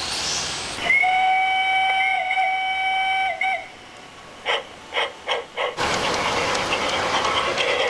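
A large-scale model steam locomotive gives one long whistle of about three seconds, then a few slow, separate chuffs as it starts off, followed by the steady running sound of the train. Before the whistle, a fading motor hiss from an RC car is heard for under a second.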